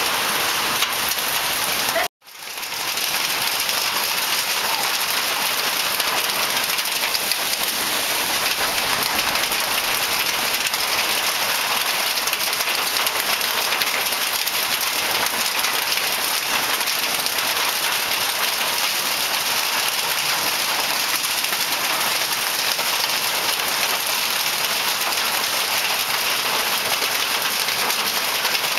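Heavy rain pouring down in a steady hiss. It cuts out abruptly for an instant about two seconds in and fades back.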